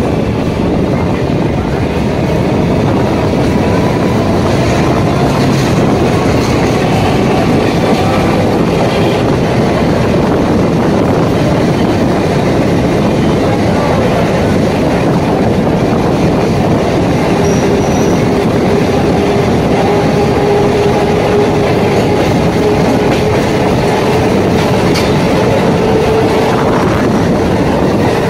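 Steady loud rumble and clatter of steel wheels on rails as an EMU local and a freight train of covered wagons run side by side, heard from the EMU's open doorway. A faint drawn-out whine rides over the rumble in the second half.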